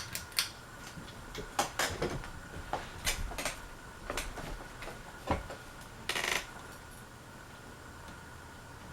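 Harbor Breeze Armory ceiling fan running at medium speed with a faint steady hum and tone. Over it come irregular light metallic clicks and clinks, with a short rattle about six seconds in.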